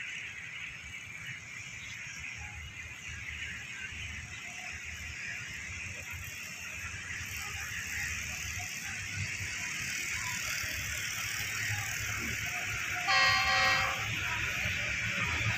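A distant Pakistan Railways GEU40 diesel locomotive sounds one short, multi-tone horn blast near the end. Under it runs a steady hiss and a low rumble that slowly grows louder.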